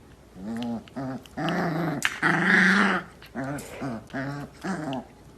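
A dog vocalizing in a run of short calls that bend up and down in pitch, about two a second, with a louder, rougher stretch about a second and a half in.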